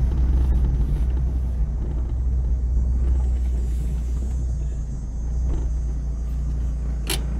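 Steady low rumble of a car's engine and road noise heard inside the cabin while driving, with one short sharp click about seven seconds in.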